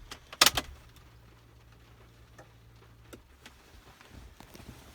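A sharp double click as a car key turns in the ignition switch about half a second in, followed by a faint low hum for a couple of seconds and a few soft ticks.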